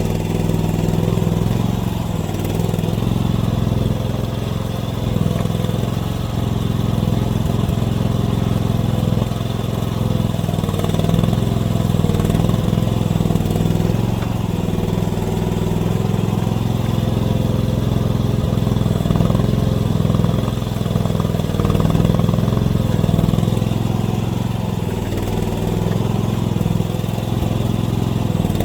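AGT mini excavator's engine running steadily, rising and falling slightly as the machine works.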